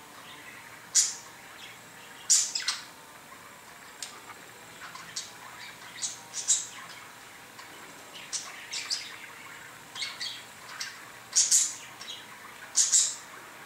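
Budgerigar chirping: short, sharp high calls scattered irregularly about once a second, some in quick pairs or small clusters.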